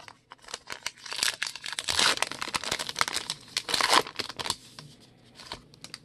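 Crinkly plastic wrapper of a Topps Archives baseball card pack being torn open and crumpled as the stack of cards is pulled out. The crackling comes in two louder spells, about two and four seconds in, then dies down to light handling near the end.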